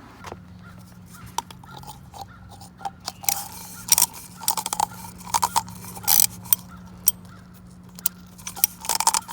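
Irregular metallic clicks and clinks of a 13 mm socket ratchet being worked to run bolts down, in short bunches from about three seconds in, over a steady low hum.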